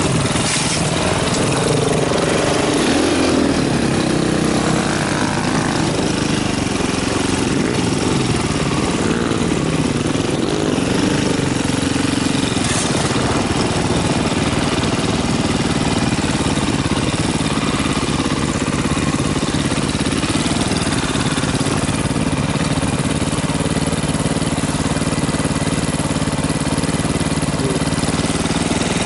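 KTM dirt bike's engine running at low speed. It rises in pitch a few seconds in as the bike pulls away, then runs steadily.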